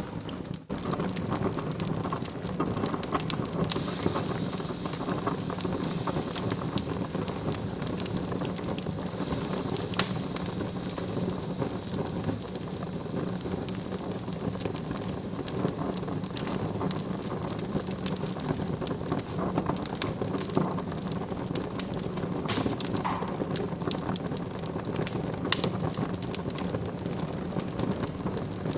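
Wood fire burning in a fireplace: steady crackling with many small pops and a soft hiss, and one sharper pop about ten seconds in.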